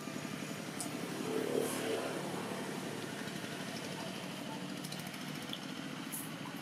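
An engine running steadily, a little louder about one and a half to two seconds in.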